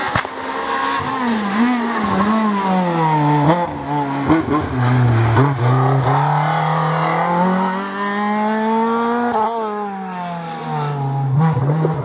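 Renault Clio R3 rally car's four-cylinder engine slowing for a hairpin: the revs fall with a few sharp cracks, bottom out, then climb hard as it accelerates away. There is a sudden drop in pitch at a gear change near the end before the revs rise again.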